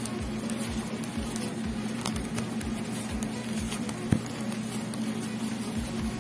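Thin metal knitting needles clicking and tapping against each other as purl stitches are worked in yarn, over a steady low hum, with one sharper knock about four seconds in.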